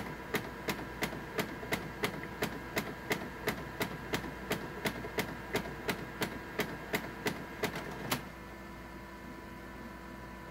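Canon Color imageCLASS MF733Cdw laser printer clicking repeatedly, about three sharp clicks a second, while it runs its 'Correcting' routine. The clicking stops about eight seconds in, leaving a fainter steady hum. It is a fault that the owner links to printouts that skip lines.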